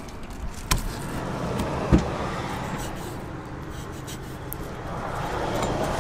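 A knife knocking twice on a plastic cutting board while a fish fillet is cut, the knocks a little over a second apart, over a steady background rumble.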